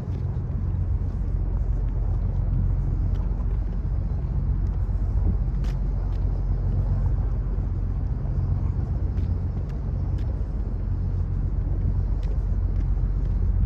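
Steady low rumble of wind buffeting the microphone on an open waterfront plaza.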